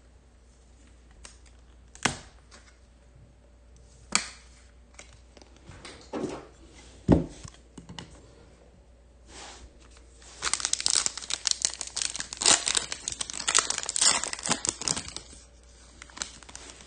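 A few separate sharp knocks and clicks from card handling, then about five seconds of dense crinkling and tearing as the foil wrapper of a Topps Chrome Formula 1 Sapphire card pack is ripped open by hand.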